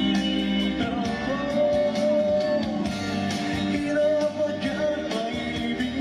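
A young man's voice singing a sentimental pop ballad into a handheld microphone over instrumental accompaniment, with long held notes through the middle.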